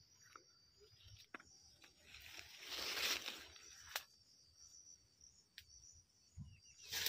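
Leaves and stalks of wild climbing-plant shoots rustling as they are handled and picked by hand. The rustle swells about three seconds in, and a sharp snap comes near four seconds. Under it runs a faint steady high hum of insects.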